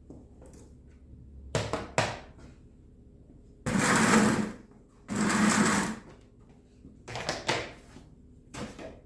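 Two bursts of a small motorised tool, about a second each, in the middle, with knocks and clatter of handled objects before and after.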